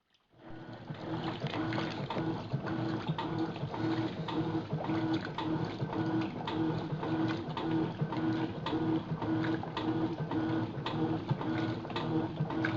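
Electrolux top-loading washing machine starting to agitate after filling, its motor and agitator running in a steady rhythm of about two pulses a second with sharp clicks and knocks. The machine's tub bearings are worn out and due for replacement.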